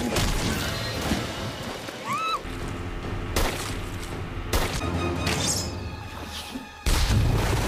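Film soundtrack music cut together with sound effects: a short rising-and-falling tone about two seconds in, several abrupt cuts, and a loud burst heavy in the low end near the end.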